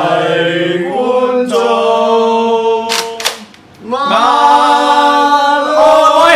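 Voices singing a tune in long held notes, sliding into each new note. Two sharp clicks come close together about three seconds in.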